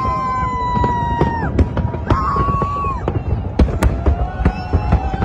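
Fireworks display: a dense run of shell bursts and crackling bangs, with drawn-out high whistling tones held over it, one at the start and another about two seconds in.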